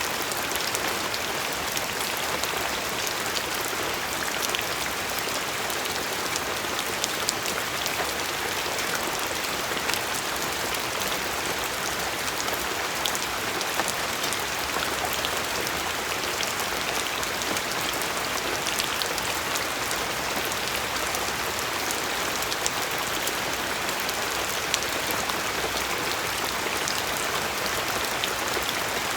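Steady rain falling on a surface, a dense even hiss with many small drop ticks scattered through it.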